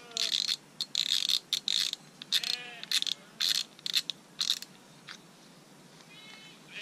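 Irregular mechanical clicking and rattling of a Shimano Ultegra XSC CI4 14000 surf spinning reel being handled as its spool is taken off, stopping a little after the middle.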